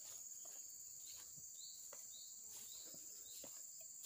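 Faint, steady, high-pitched drone of insects, with short chirps repeating about twice a second.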